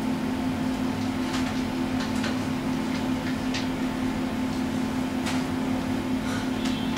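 Steady low hum of room noise, with a few faint small clicks.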